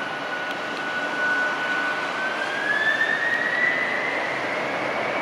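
Boeing 767-300 freighter's General Electric CF6 turbofan engines running up for takeoff: a steady rush of jet noise with a whine that holds its pitch, then climbs from about halfway through as thrust increases.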